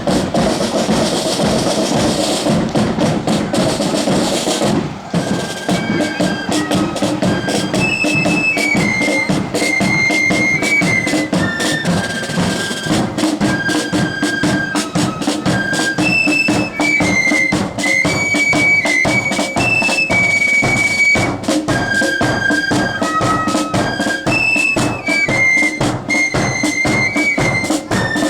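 Loyalist marching flute band (blood-and-thunder style) playing: drums beat all through, and about five seconds in the flutes come in with a stepping, high tune over the drumming.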